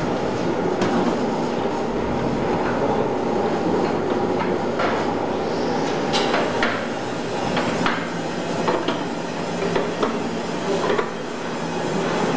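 Murka KBLF 200 cup-cutting machine for profiled timber running with a steady mechanical din, broken by irregular sharp knocks and clanks.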